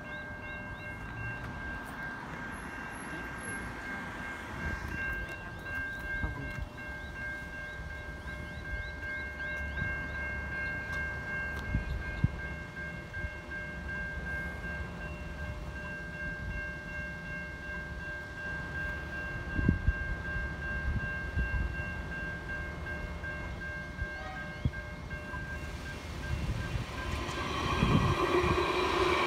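Level crossing warning bells ringing steadily, stopping about 25 seconds in. A tram then approaches and passes close by, its running noise growing loud near the end.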